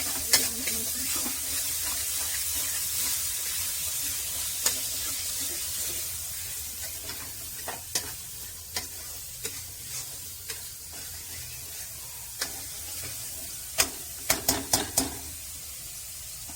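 Squirrel meat sizzling as it fries in a pan, a steady hiss that eases off about six seconds in. A cooking utensil taps and scrapes against the pan now and then, with a quick run of taps near the end.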